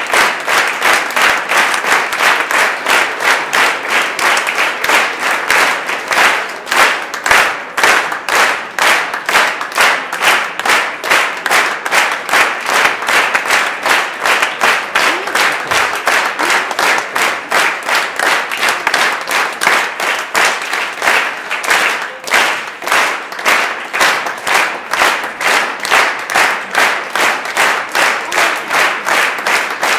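Audience applauding, the clapping settling into a steady rhythmic beat in unison, about two claps a second.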